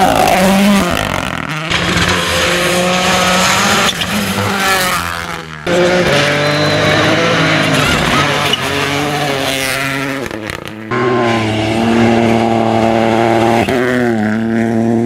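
Rally cars at speed on a gravel stage, one after another: engines revving hard and dropping back through gear changes, with loose gravel spraying from the tyres. The engine note changes abruptly every few seconds as one car gives way to the next.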